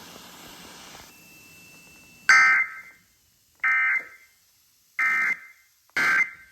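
Emergency Alert System SAME digital data bursts: four short, harsh electronic squawks roughly a second apart, starting about two seconds in, after a moment of faint hiss. This is the coded signal that frames an emergency alert broadcast, here a severe thunderstorm warning.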